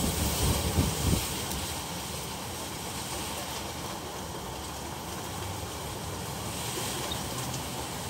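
Typhoon wind and heavy rain, a steady roar of wind with the hiss of rain. Gusts buffet the microphone through the first second or so.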